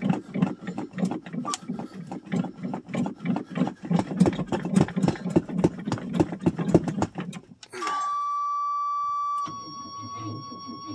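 Starter cranking the 1985 Chevrolet Suburban's engine in a rapid, uneven rhythm on weak batteries for about eight seconds without it catching. The cranking then stops suddenly and the dash warning buzzer sounds in a steady high tone.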